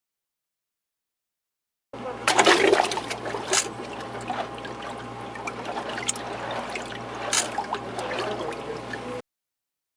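Water running and trickling, starting abruptly about two seconds in with a louder splashy stretch, then a steady flow with scattered small splashes, cut off suddenly near the end.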